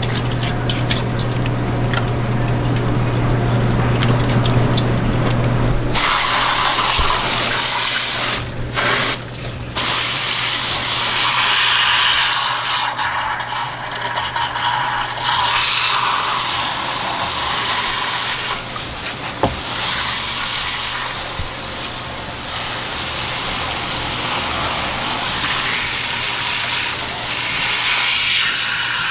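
Water running from a hose into the opened belly cavity of a gutted yellowtail, splashing as it rinses out the blood. The spray gets louder and brighter about six seconds in and breaks off briefly twice a few seconds later.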